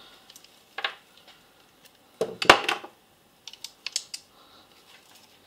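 Hand tools being picked up and handled, a scatter of sharp clicks and clatters, with the loudest cluster about two seconds in and a few lighter clicks a second or so later.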